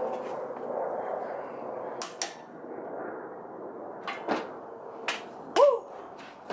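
Scattered sharp clicks and knocks of hand tools and bolt hardware being handled while working under the front of a Jeep, with a short rising-and-falling squeak, the loudest sound, about five and a half seconds in.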